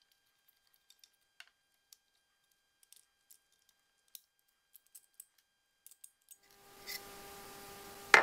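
Faint, scattered clicks and taps of hand work on a HiBlow septic aerator air pump: screws, screwdriver and the plastic diaphragm housing being handled as the housing is lifted off. A faint steady hum comes in near the end, and one sharper click closes the window.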